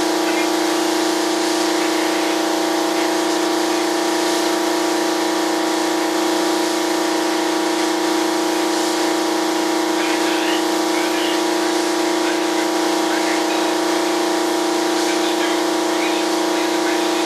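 Paint spray gun spraying primer: a steady hiss over the constant hum of the motor supplying its air, with no change in level.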